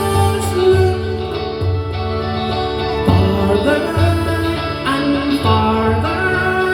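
Live band music: a song with a singing voice over a steady, pulsing low beat.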